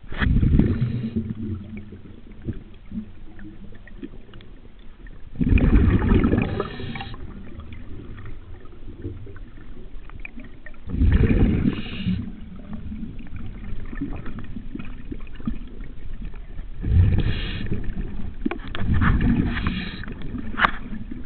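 Underwater, a scuba diver's exhaled bubbles rush from the regulator in bursts of about a second, every five to six seconds, in time with the breathing, with a quieter hiss between. A single sharp click comes near the end.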